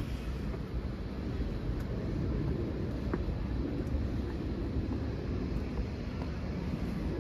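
Steady low rumble of outdoor city ambience.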